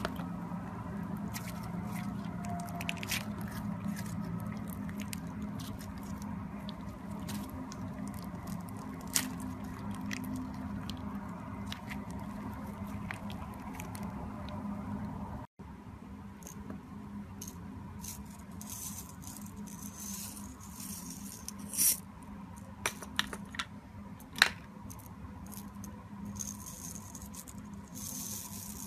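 Hands stretching and folding white fluffy slime, with many small sticky clicks over a steady low hum. About halfway it cuts to clear slime topped with beads being pressed, with scattered clicks and a few sharper pops.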